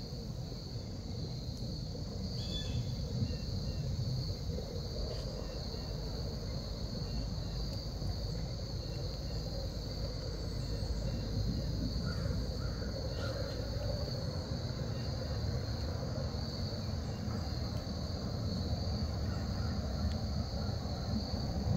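Woodland ambience: a steady high insect chorus of crickets over a low steady rumble, with a few faint bird calls.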